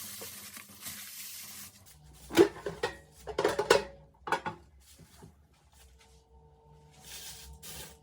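Frying sizzle that cuts off about two seconds in, followed by a burst of clinks and clatters of cookware, dishes and utensils knocking together, with a faint steady tone after it.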